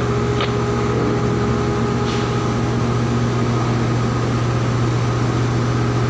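Floating crane's diesel engine running steadily at constant speed, a loud even low drone with a steady hum above it and a couple of faint clicks early on.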